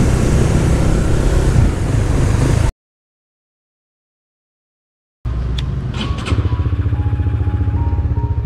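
Small single-cylinder motorcycle (Honda Winner V1, 150 cc) on the move: engine and riding noise for about the first three seconds, then cut off into total silence for about two and a half seconds. The engine comes back running with a fast even pulse and a few clicks, and faint music begins under it near the end.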